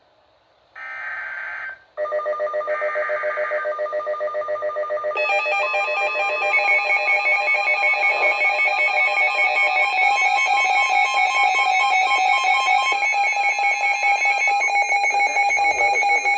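Emergency Alert System signal on NOAA Weather Radio for a tornado warning: short bursts of the digital SAME header data, then several weather alert radios sounding their alarms at once. The alarms are layered, rapidly pulsing electronic beeps, and more of them join about five seconds in.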